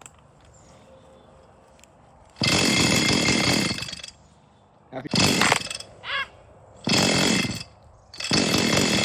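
Chainsaw being pull-started over and over, starting about two seconds in: four times the engine fires and runs for a moment, then cuts out. It keeps dying because it is starved of fuel after months unused.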